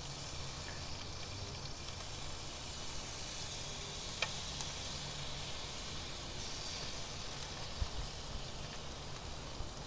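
Wild boar rib roasts sizzling steadily on the grate of a Big Green Egg ceramic grill as the glaze goes on, with a faint click about four seconds in.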